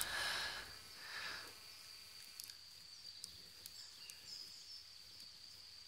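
Faint, scattered small clicks of a lock pick and tension tool working the spools of an Abus 45/40 padlock held in a false set, over a steady high-pitched insect trill.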